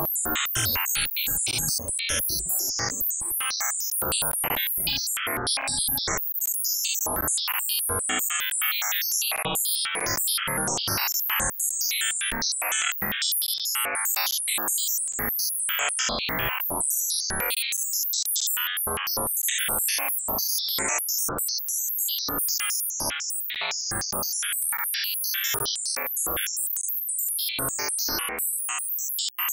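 Electronic performance music, keyboard and synthesizer-like, in a dense, choppy texture of rapid short pulses with a bright, hissy top.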